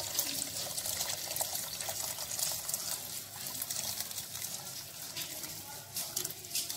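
Hot chicken stock pouring from a pot through a metal mesh strainer into a plastic jug, a steady trickling splash.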